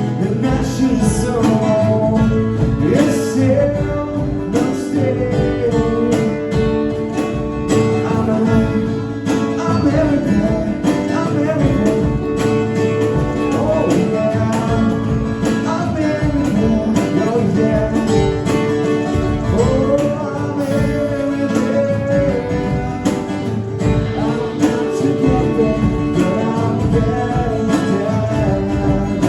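Live acoustic band music, with guitars strumming and picking steadily throughout.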